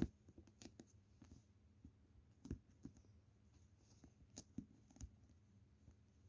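Faint, irregular small clicks and soft taps, about a dozen, the sharpest right at the start, over a low steady hum.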